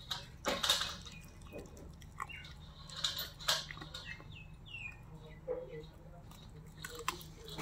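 A dog chewing and mouthing a piece of chicken with rice: irregular wet clicks and crunches, about one every second or so. A few short bird chirps in the background.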